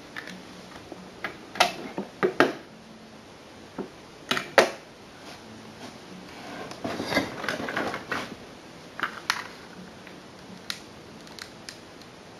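Someone rummaging through a box of odds and ends: scattered knocks and clatters of small hard items being picked up and put down, with a denser spell of rustling and clattering about halfway through.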